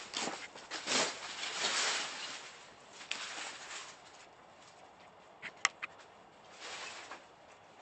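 Footsteps crunching over a debris-strewn floor, uneven steps, with three sharp snaps or clicks about five and a half seconds in.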